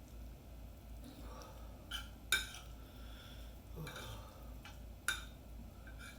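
Cutlery knocking and clinking against a plate of food while eating: several sharp clinks spread out, the loudest about two and a half seconds in.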